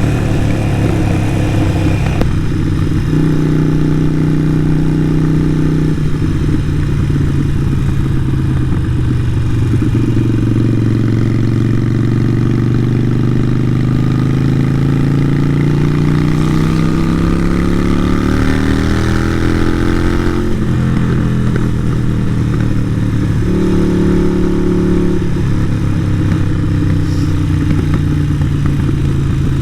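Harley-Davidson Sportster 883 Iron's air-cooled V-twin running through a Vance & Hines exhaust while being ridden. The engine note steps in pitch a few times, climbs steadily under throttle for about ten seconds, then drops suddenly about twenty seconds in.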